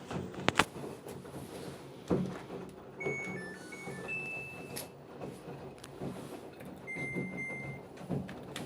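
Electronic beeps from a Samsung dryer's control panel: a short run of notes stepping up and down in pitch, then one more beep near the end, with a few sharp clicks of buttons or the door between them.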